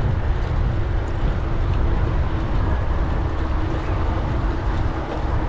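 Wind rumbling over a bicycle-mounted GoPro's microphone while riding, with bike tyres rolling on a gravel track. Steady throughout.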